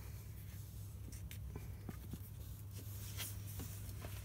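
Faint scrapes and small clicks of fingers working a loosened crankshaft seal off the crankshaft nose, over a steady low hum.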